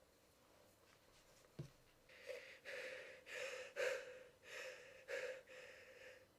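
A person's quiet, short breaths, about seven in a row beginning about two seconds in, after a single faint click.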